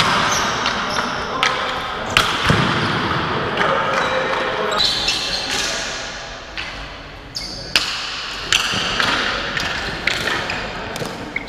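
Ball hockey play: irregular sharp clacks of sticks and ball striking the concrete floor, with players' shouts, all echoing in a large arena.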